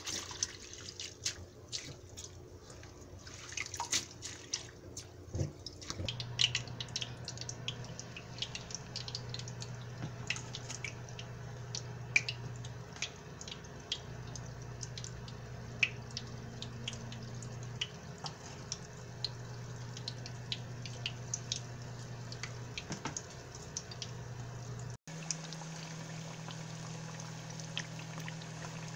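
Sweet potato fritters frying in a shallow pan of oil: a continuous sizzle with many small crackles over a steady low hum. In the first few seconds, water sloshes as a hand rinses sliced onion in a bowl in the sink.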